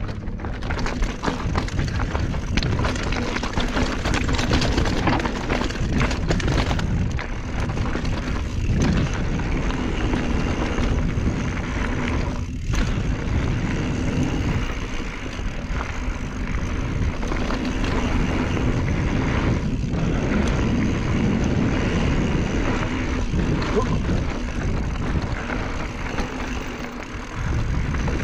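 Wind rushing over a chest-mounted action camera's microphone as a mountain bike descends, with its tyres crunching over rocky dirt and the bike clattering over bumps.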